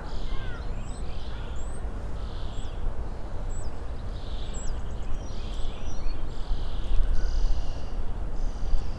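Small birds chirping repeatedly, short high calls about once a second, over a steady low rumble.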